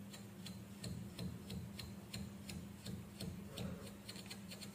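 A run of light, sharp clicks, about three a second, coming faster near the end, over a low steady hum.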